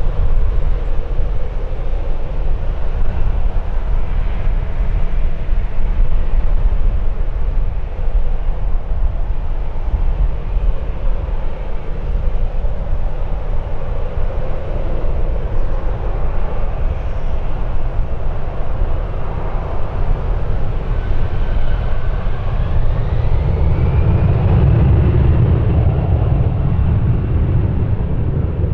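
Jet aircraft engines running, with a whine that rises in pitch near the end, under heavy wind buffeting on the microphone that makes a strong low rumble.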